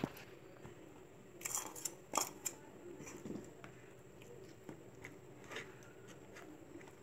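Henna paste being mixed by hand in a plastic bowl: soft wet squishing and handling, with a cluster of sharp clicks and scrapes between about one and a half and two and a half seconds in.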